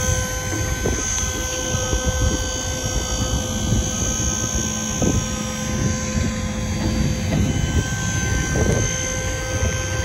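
Dump trailer's hydraulic pump running steadily as the raised bed is powered back down: a constant whine of several pitches over a low rumble.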